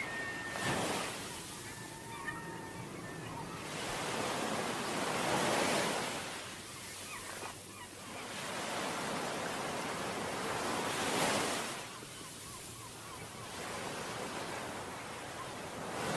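Ocean surf washing onto a beach, swelling and ebbing in slow waves, with louder breakers about a second in, around five to six seconds in, around eleven seconds in and again at the end.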